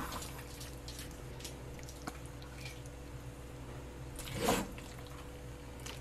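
Quiet room tone with a faint steady hum, a few soft ticks, and one short, louder noise about four and a half seconds in.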